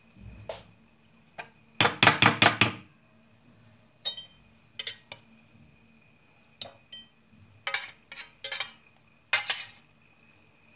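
Utensils clinking against a stainless steel bowl and a ceramic plate as stuffed peppers are lifted out and served. A quick run of clinks comes about two seconds in, followed by scattered single clinks.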